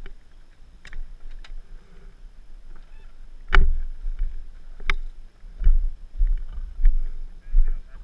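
Knocks and clunks, about half a dozen, the loudest about three and a half seconds in, over a low rumble. They come from a rider handling dirt bikes and riding gear, picked up close on a helmet-mounted camera.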